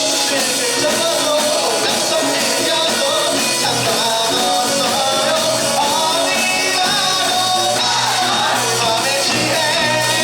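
Live rock band playing a song, with drums and a wavering melody line over a dense, steady band sound.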